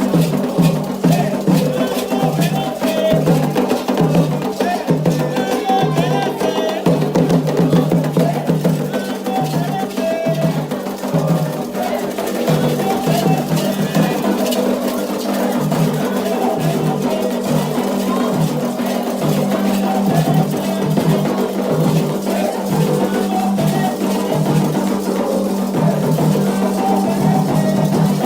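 Candomblé ritual music for Xangô: atabaque hand drums and a struck iron bell play a driving, steady rhythm under group singing.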